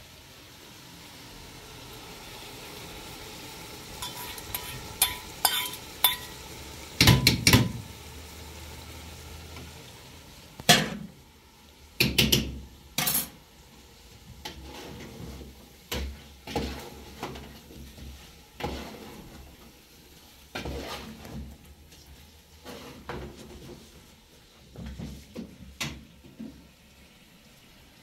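Pots, dishes and metal utensils clinking and knocking at irregular intervals, over a faint hiss that fades out about ten seconds in.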